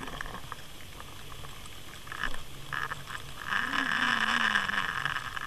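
Muffled water rush and hiss picked up by an underwater camera towed on a trolling line, swelling louder in the second half.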